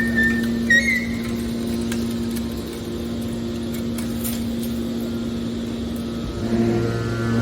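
Hydraulic scrap baler running with a steady machine hum, a couple of brief high squeals in the first second. About six and a half seconds in, a deeper, louder tone joins the hum.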